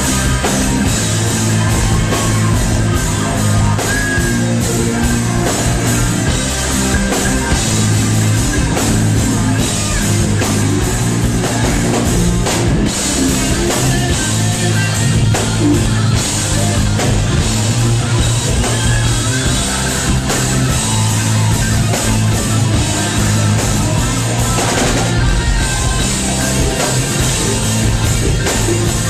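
Live rock band playing an instrumental jam: several electric guitars over a drum kit, loud and unbroken.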